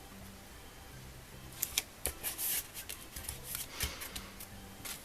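Cardstock and paper being handled, a card folded and pressed: a run of short rustles and light clicks, starting about a second and a half in.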